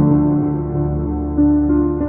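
Background music: soft ambient keyboard chords with long held notes.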